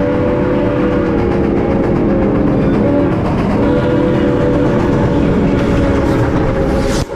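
Steam whistle of CP 2816, a 1930 H1b Hudson steam locomotive, blowing several notes at once in two long blasts, over the low rumble of the moving train. The whistle cuts off suddenly near the end.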